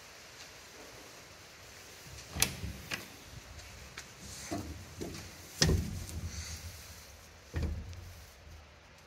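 A run of metal clunks and knocks from someone climbing into a Massey Ferguson 188 tractor's cab past the open cab door: two knocks about two and a half seconds in, the loudest bang a little past halfway, another clunk near the end.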